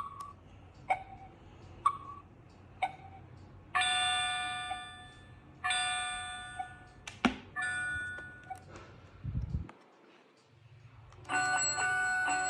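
Electronic sound chip of a children's Christmas sound book playing: four short ringing notes alternating high and low like a doorbell ding-dong, then two longer chiming sounds of several notes, a few clicks, and near the end a tinkling bell-like melody begins.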